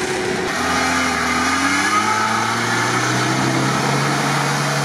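Lada Niva's four-cylinder petrol engine pulling hard under load through mud. The revs climb over the first two seconds, then hold steady.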